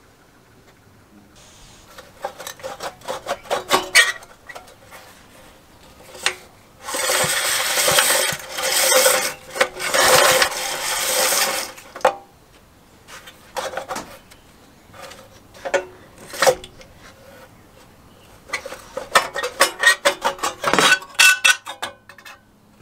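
Metal clinks, rattles and knocks as an old Briggs & Stratton 3 HP engine is handled and worked on at its recoil-starter housing, with a few seconds of dense scraping noise in the middle and a quick run of clicks near the end.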